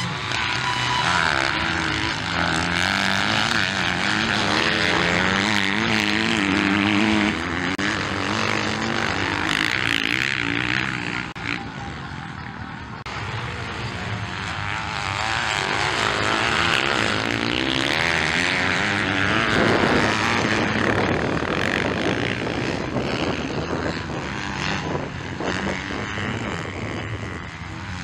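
Motocross bike engines revving, their pitch rising and falling again and again as the bikes accelerate and back off around the track. The sound dips briefly about twelve seconds in, then builds again.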